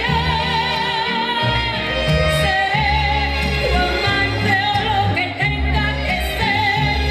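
A woman singing into a microphone, holding long notes with vibrato, over instrumental backing music with a steady bass.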